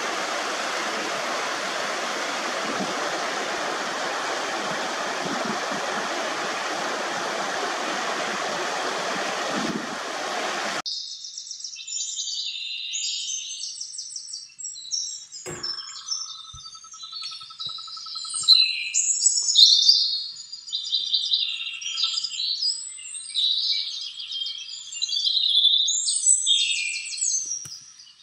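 Water rushing down a small rocky mountain cascade, a steady hiss that cuts off abruptly about eleven seconds in. After that, small songbirds chirp and sing in quick, high-pitched phrases, with a brief knock near the start of the birdsong.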